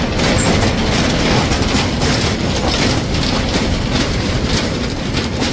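A vehicle driving along: a steady, loud rumble of road and engine noise with continuous rattling.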